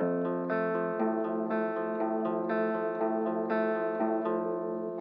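Background music: plucked guitar notes in a steady rhythm, a new note or chord about every half second.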